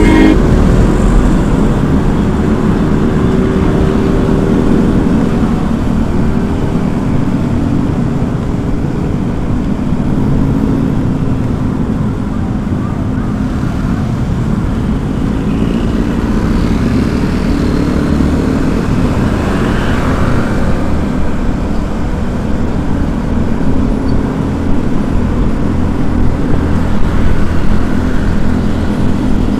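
Road noise from a moving vehicle: a steady engine hum under a loud low rumble of tyres and wind on the microphone, with other traffic around it.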